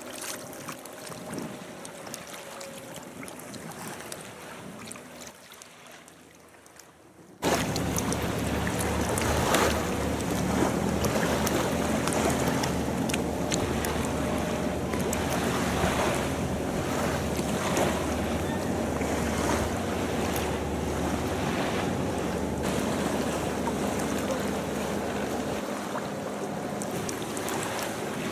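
Sea surf and wind buffeting the microphone at the shoreline. The sound is faint for about the first seven seconds, then turns suddenly much louder with a low rumble.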